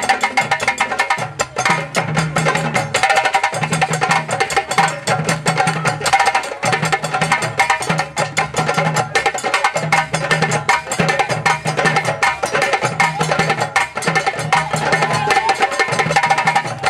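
Live West African drum ensemble: djembes playing a fast, dense rhythm of sharp strikes over a repeating low bass-drum pattern.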